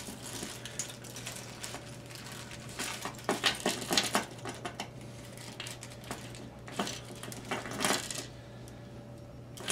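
Clear plastic parts bag rustling while small metal ukulele hardware (tuning machines, screws) clinks inside it as the bag is opened and handled, in irregular clusters of clicks and crinkles.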